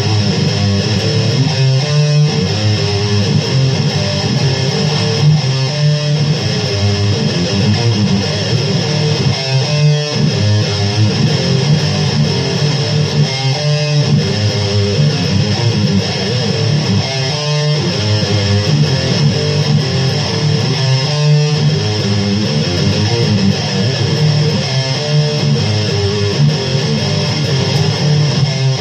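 Electric guitar playing riffs, mostly low notes, with a phrase that comes round about every four seconds.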